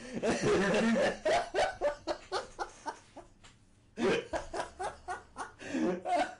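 A man laughing: a quick run of short laughs that trails off about three seconds in, then a second fit of laughter starting about a second later.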